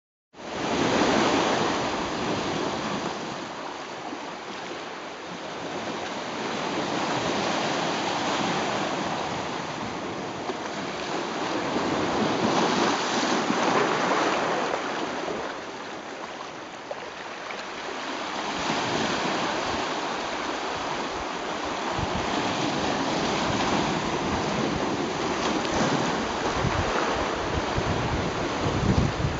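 Sea waves washing and rushing at the shoreline, a steady hiss that swells and eases every few seconds, with some wind on the microphone.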